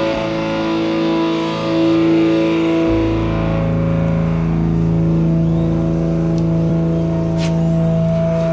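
Music: a loud chord on distorted electric guitar rings on with long sustain, and a deep held low note comes in about three seconds in.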